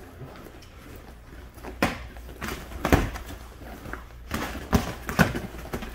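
Boxing gloves landing punches in sparring: a handful of sharp, irregularly spaced thuds, starting about two seconds in.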